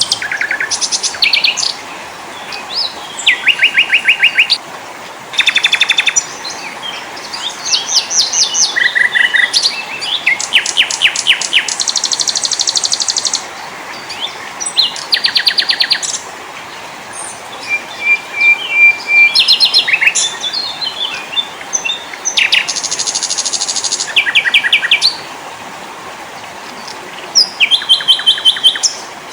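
Small songbirds singing: rapid high trills and chirp series one after another, several blocks starting and stopping abruptly as if spliced together, over a steady background hiss.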